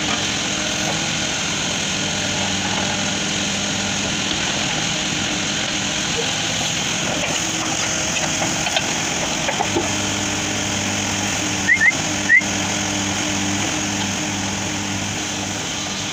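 JCB 3CX backhoe loader's four-cylinder diesel engine running steadily under digging load, its low hum growing stronger about ten seconds in. Three short, high, rising chirps come close together about three-quarters of the way through.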